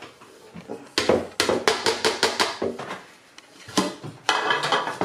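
Plastic kitchen bowls knocking together as flour is tipped from one bowl into another: a quick run of sharp knocks, about five a second, starting about a second in, then a few more knocks and rustling near the end.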